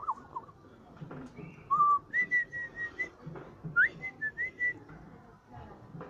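Clear whistling: a falling, wavering trill at the start, then two runs of short notes held at nearly one pitch, about two seconds in and again near four seconds.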